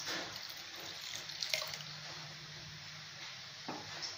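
Coconut milk being poured from a bowl into a steel pot of thick lentil-and-jaggery payasam: a soft liquid trickle and splash, loudest at the start and then fading. There are a couple of faint light knocks.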